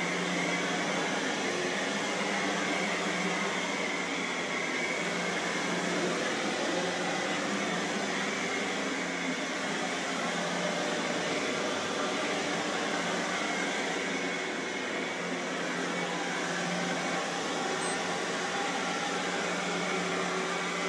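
Upright vacuum cleaner running steadily, a constant motor hum under an even rush of air.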